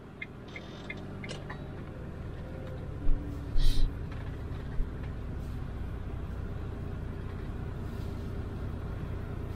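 Camper van's diesel engine running as the van rolls slowly, heard from inside the cab: a low hum that builds over the first few seconds and then holds steady. A few short knocks sound about three to five seconds in.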